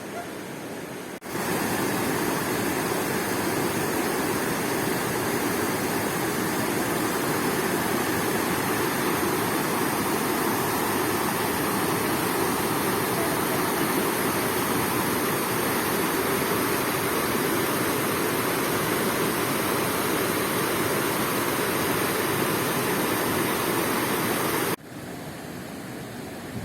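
Steady rush of fast-flowing water, cutting in about a second in and cutting off abruptly near the end.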